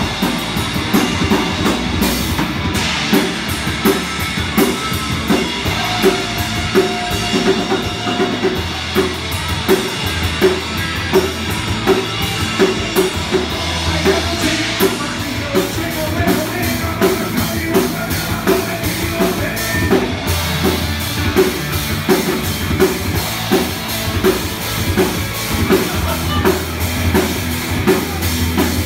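Live rock band playing loud in a club, a drum kit keeping a steady beat about twice a second under electric guitars and bass.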